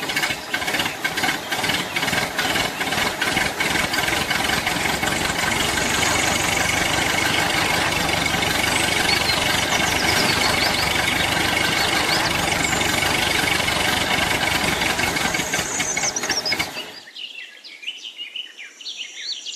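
Small DC electric motor running with a fast, steady rattle, stopping abruptly about three seconds before the end; faint bird chirps remain after it.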